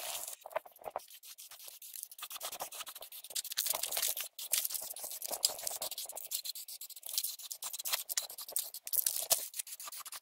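Aerosol spray paint can hissing in short, irregular bursts, mixed with scattered clicks and scrapes.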